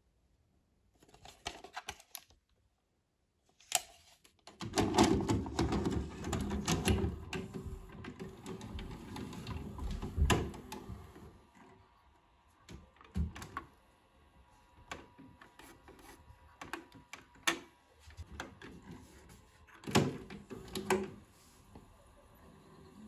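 A VHS cassette pushed into a Grundig GVP 500 video cassette player and drawn in by its loading mechanism, with several seconds of clattering mechanical whirring; then scattered clicks and clunks as the front buttons are pressed and the tape transport engages, with two louder clunks near the end.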